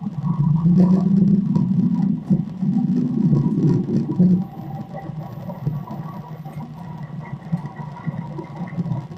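Playback of a recorded low, uneven rumble, louder in the first few seconds, with a faint steady high tone above it.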